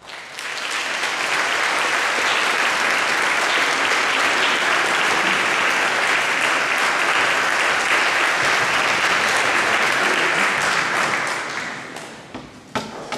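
Audience applauding after a brass band piece ends, building within the first second, holding steady, then dying away near the end with a couple of sharp knocks.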